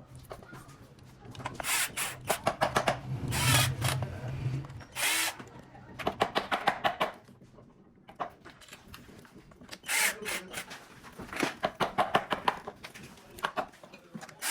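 Power tool running in short bursts of rapid clicking, about four times.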